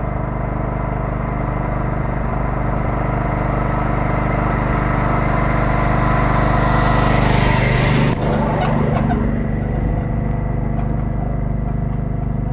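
Skid steer loader's engine running steadily, growing louder with more hiss until about eight seconds in, then easing back.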